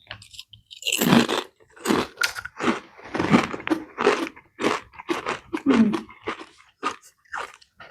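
Crunchy Sabritas Flaming Hot potato chips being bitten and chewed close to the microphone: a run of irregular crunches, about two a second, beginning about a second in.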